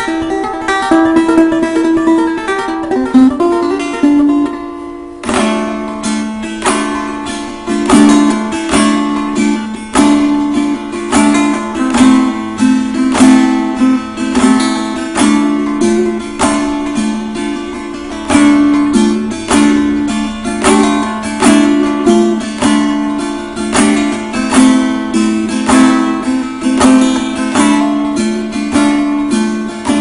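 Kopuz, a Turkic plucked lute, played as an improvisation: picked notes over a steady low note, then from about five seconds in louder, regular strummed strokes.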